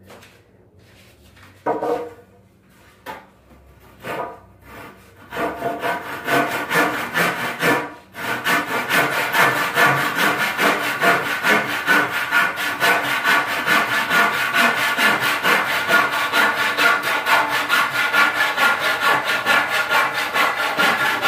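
Hand saw cutting through a wooden board in steady, rhythmic back-and-forth strokes, starting about five seconds in and running without a break after a short pause near eight seconds. Before it, a couple of wooden knocks.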